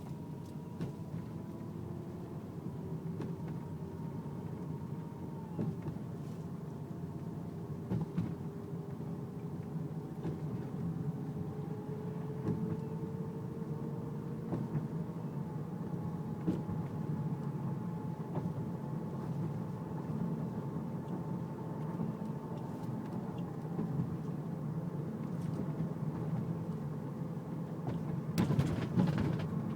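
Car power steering whining over the low rumble of the engine and road, the whine's pitch drifting slowly up and down. The owner blames a worn power steering pump; a mechanic blamed the rack and pinion. A few clicks and rubbing noises come near the end.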